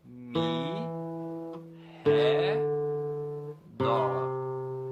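Nylon-string classical guitar playing three single plucked notes one after another, each left to ring and fade. They are the last steps of a slow descending C major scale, E, D and C on the lower strings, each a little lower than the one before.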